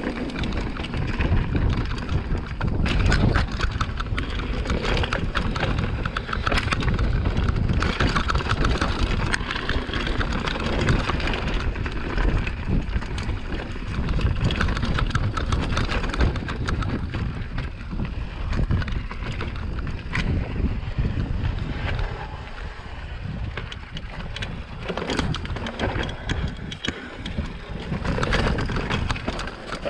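Mountain bike descending a rocky downhill trail at speed: wind rumbling on the camera microphone, with the tyres rolling over rock and the bike rattling and knocking in many sharp clatters.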